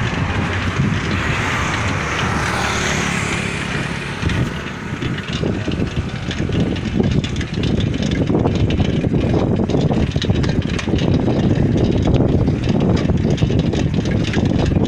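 Wind rushing and buffeting over the microphone of a moving motorcycle, mixed with road and engine noise. The buffeting gets heavier about halfway through.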